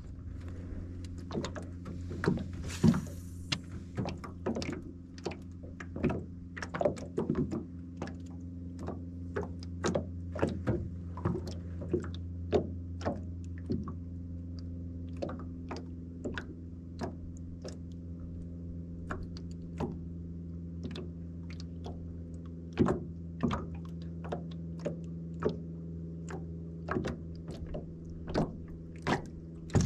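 A steady low electric hum, typical of a bow-mounted trolling motor on an aluminum boat, runs throughout. Irregular sharp clicks and thunks land about one or two a second.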